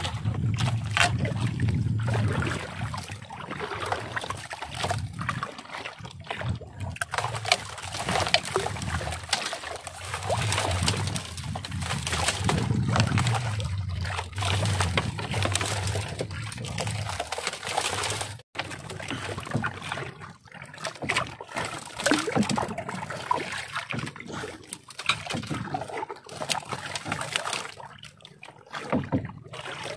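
Seawater sloshing and splashing around a small boat's hull as a baited longline is paid out overboard by hand, with a low rumble that comes and goes.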